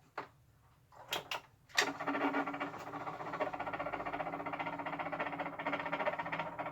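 A few clicks of the control knobs, then the Bionaire tower fan switching on: a steady low hum with a fast, fine rattle. This is the fault noise of a fan that runs but does not blow air.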